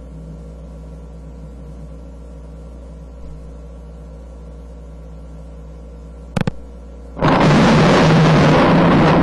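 A steady low electrical hum, with two brief clicks about six seconds in; about seven seconds in, a loud, dense noise cuts in abruptly and holds steady.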